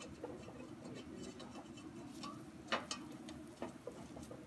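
Cooking utensil stirring chopped vegetables in a stainless steel saucepan, with scattered light clicks and scrapes of the utensil against the metal pan. There is one sharper knock nearly three seconds in and another a second later, over a steady low hum.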